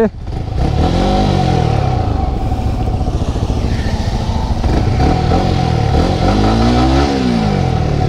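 Yamaha R15's single-cylinder engine running on the move, revving up and easing off twice: about a second in and again near the end.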